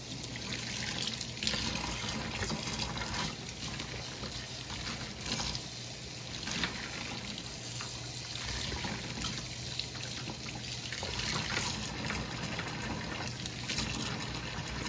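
Kitchen tap running into a sink while a pot is washed by hand, with the water splashing and trickling unevenly.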